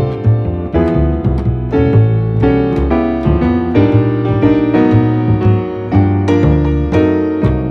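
Background music led by piano, notes struck one after another over a low bass line.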